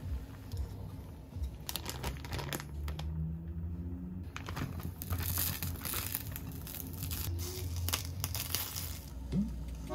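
Plastic sausage-packet crinkling and rustling as it is handled and torn open, in dense crackly bursts starting about two seconds in.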